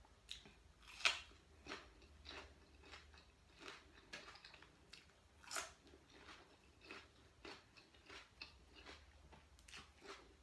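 A person chewing a mouthful of raw red bell pepper, faint, even crunches about every two-thirds of a second, with louder crunches about a second in and about five and a half seconds in.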